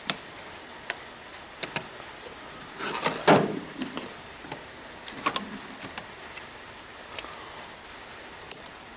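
Machinist's tool chest drawers being slid shut and open, with small clicks and clinks of tools handled in them. The loudest is a drawer sliding about three seconds in; near the end a sharp metallic clink as loose steel drill rods are handled.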